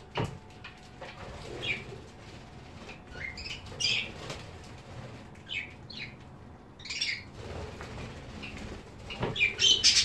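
Budgerigars chirping in short, high warbling calls, with wings fluttering about a second in and again near the end, the loudest flurry of wingbeats and chirps coming as the birds take off.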